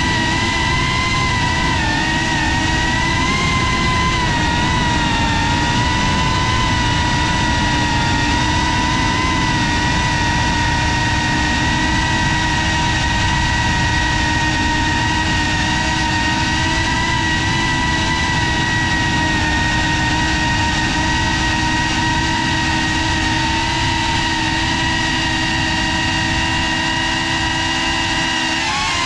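FPV quadcopter's electric motors and propellers whining steadily in flight, heard close from the GoPro mounted on the drone, over a low rush of wind and prop wash. The whine's pitch wavers slightly with the throttle a couple of seconds in and again near the end.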